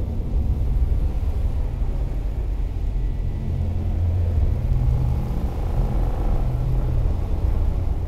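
A deep, steady rumble made of low droning tones that shift in pitch a few times.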